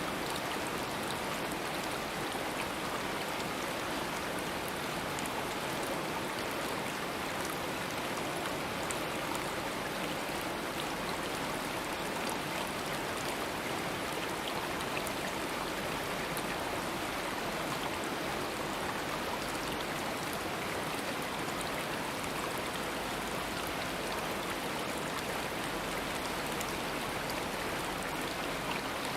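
A stream running steadily over rocks, an even rushing of water with small splashes and droplets scattered through it.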